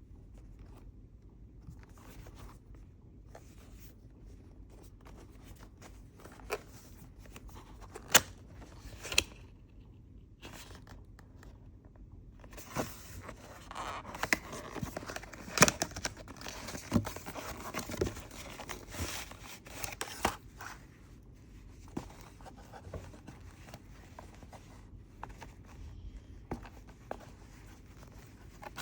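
Packaging being handled and opened by hand: scattered sharp clicks and snaps, then a busier stretch of rustling and tearing in the middle, settling back to occasional light handling noises.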